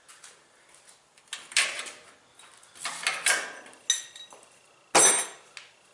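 The top panel of a Maytag Centennial washer being worked loose and slid off its tabs: scraping and clattering of sheet metal and plastic, with a sharp ringing metal clank about five seconds in.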